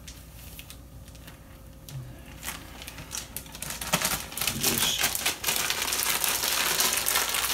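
Plastic bag crinkling as raw chicken pieces inside are squeezed and worked to coat them in Kool-Aid drink mix for catfish bait. Scattered crackles at first, then a dense, continuous crinkling from about four seconds in.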